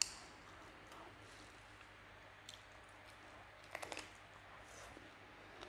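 Close-up mouth sounds of a person eating a chicken wing by hand: a sharp click at the start, then a quick run of four or five clicky bites and smacks a little under four seconds in.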